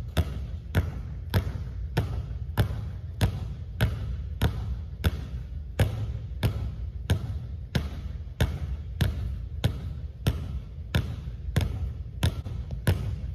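Two basketballs dribbled at once on a hardwood gym floor, passing between the legs, in an even rhythm of about three bounces a second.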